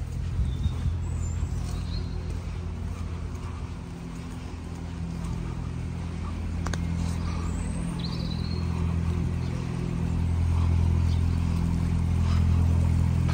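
Motor vehicle engine running at a steady pitch, growing louder over the second half.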